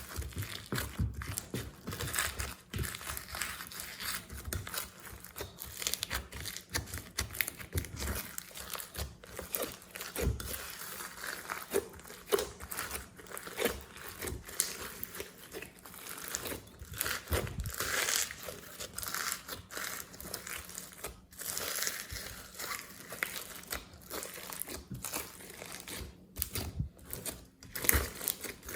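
Hands squishing, folding and stretching glossy slime: a steady, irregular run of sticky crackles, clicks and squelches.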